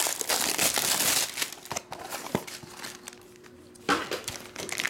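Plastic shrink wrap being torn and crinkled off a cardboard trading-card box, loudest in the first couple of seconds. It is followed by quieter rustling of a plastic foil pouch as it is handled.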